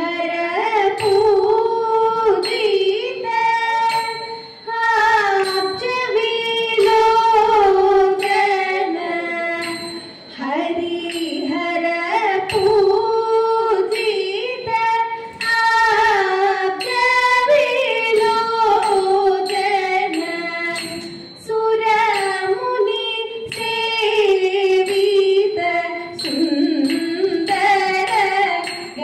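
Thiruvathira song: a woman singing an ornamented melody in Carnatic style, in phrases of a few seconds with short dips between them, kept in time by a regular beat of sharp clicks.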